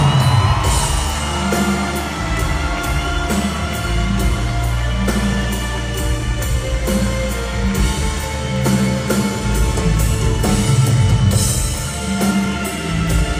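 Live band playing an instrumental passage of a Persian pop song: steady drum beat, bass and sustained instrumental melody, with no vocal.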